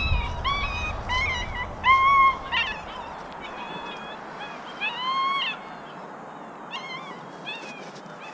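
Retriever puppies whining and yelping in a string of short, high, arched cries. The loudest come about two seconds in and about five seconds in, and they grow fainter and sparser toward the end.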